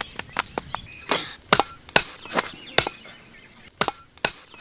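A knife chopping through hard salted dried fish on a wooden log block: about ten sharp, irregular chops, roughly two a second, some with a brief ring.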